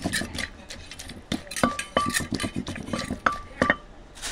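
Wooden pestle knocking in a clay mortar and a metal spoon clinking and scraping against its sides as chillies and dressing for papaya salad are pounded and mixed. There are irregular knocks, several with a short ringing clink, and they stop shortly before the end.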